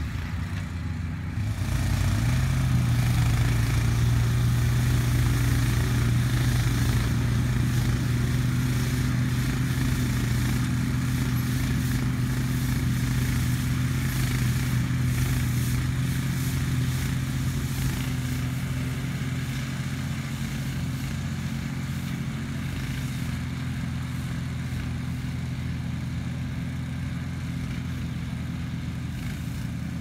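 ATV engine running steadily under load, its pitch stepping up a little about two seconds in and then holding, the sound easing off slowly over the second half.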